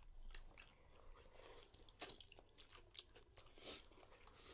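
Faint chewing and lip smacks of someone eating sauce-dipped lobster meat, heard as a scatter of short, soft clicks.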